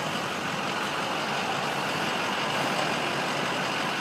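Steady motor-vehicle noise: an even rush of engine and road sound with no clear pitch and no sudden events.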